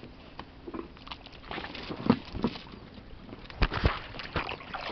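Irregular short splashes and knocks: boots stepping in shallow muddy water beside an inflatable boat, with hands on the boat's rubber tube.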